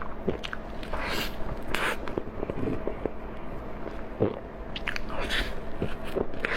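A person biting and chewing food close to the microphone, with scattered crunchy bites and mouth clicks.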